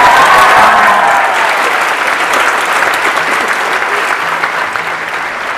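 A large audience clapping and laughing. The applause is loudest at the start and slowly dies down.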